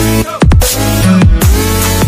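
Loud electronic background music with a steady beat and deep falling bass sweeps.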